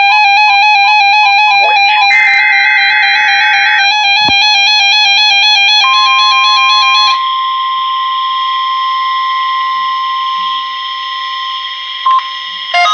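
NOAA Weather Radio weekly test signal: a rapid warbling of alternating electronic tones, with a short screeching data burst about two seconds in. From about six seconds a single steady warning alarm tone sounds, and the warbling starts again near the end.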